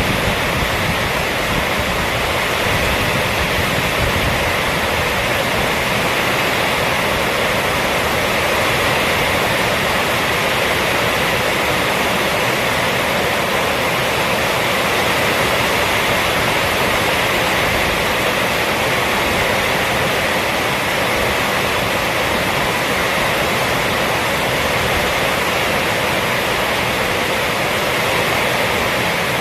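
Rainstorm: rain falling steadily on a roof, a dense, even hiss without breaks.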